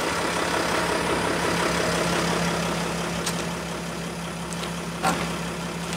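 Van engine idling steadily with a low, even hum, with two short clicks about three and five seconds in.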